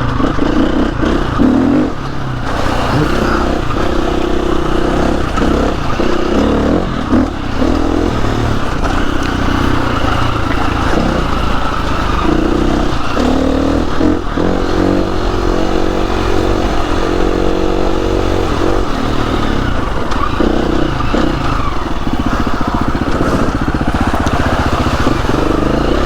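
KTM 350 EXC-F trail bike's single-cylinder four-stroke engine running under load, its revs rising and falling as the rider works through the gears.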